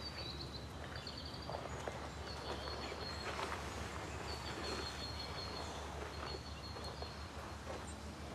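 Quiet outdoor ambience: a steady low hum with short, thin, high-pitched chirps repeating every second or so, and a few faint rustles.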